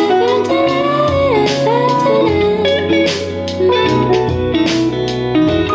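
Recorded music demo playing through Dynaudio Evoke 20 loudspeakers driven by Fosi Audio ZA3 amplification: a guitar-led track with gliding lead lines over a steady beat.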